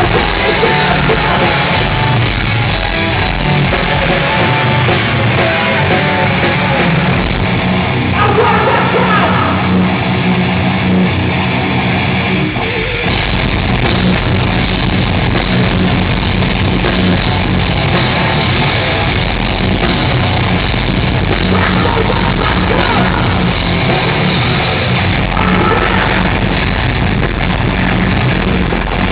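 A heavy rock band playing live and loud, with distorted guitars, drums and yelled vocals, steady and continuous.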